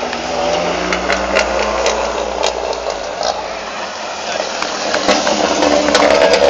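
Competition hill-climb car engines running at low revs on the drive back down the course, with scattered sharp cracks, growing louder over the last second and a half as a car comes closer.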